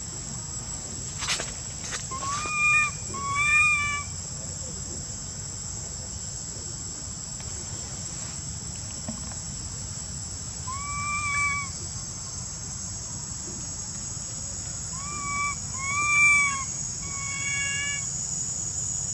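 Baby long-tailed macaque giving short, high, arched cries in small groups a few seconds apart, the distress calls of an infant separated from its mother. A steady high insect drone runs underneath.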